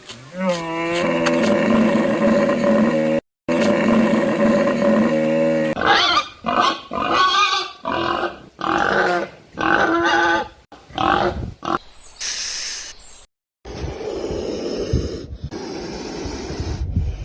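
A string of different animal calls cut one after another: first one long, steady, pitched call broken by a brief cut, then a run of short repeated calls, a brief high-pitched sound, and a rougher, lower call near the end.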